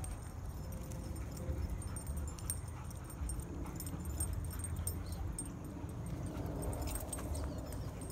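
Dog whimpering faintly over a steady low rumble, with scattered light clicks.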